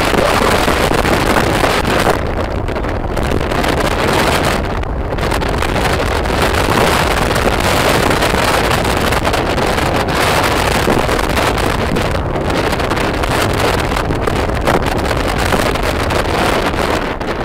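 Loud, steady wind rush buffeting a phone microphone on a moving motor scooter, mixed with the scooter's engine and road noise.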